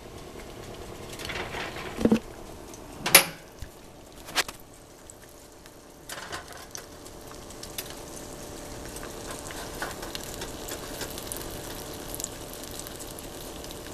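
Eggs frying in a skillet: a steady sizzle with fine crackles, clearest from about six seconds in. A few sharp knocks in the first seconds, the loudest about three seconds in.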